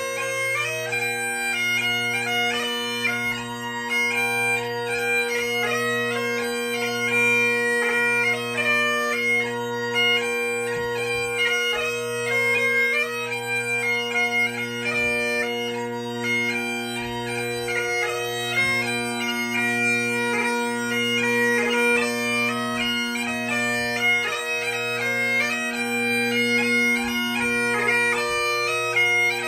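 3D-printed Highland bagpipes playing a tune on the chanter over steady, continuous drones.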